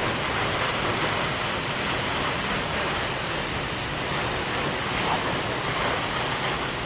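Steady rushing roar of a waterfall, an even hiss of falling water with no breaks or changes.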